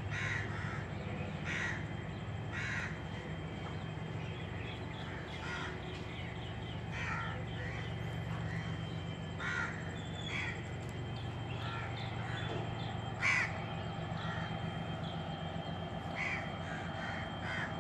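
Crows cawing, with repeated short calls scattered throughout and one louder call about two-thirds of the way through, over a steady low hum.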